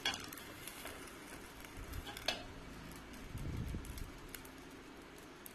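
A glass lid set down on a non-stick frying pan: a light clink as it lands, then a fainter click about two seconds later.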